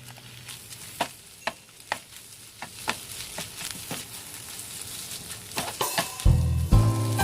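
Food sizzling in a frying pan while a spatula stirs it, knocking and scraping against the pan in separate clicks every half second or so. Music comes in near the end.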